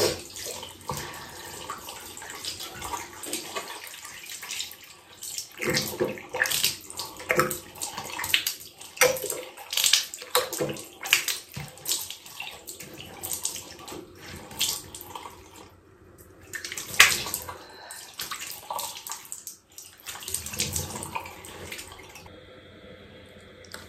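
Water running from a tap, with repeated splashing as hands scoop it over the face, arms and head during wudu, the Islamic ritual washing before prayer. The running water stops near the end.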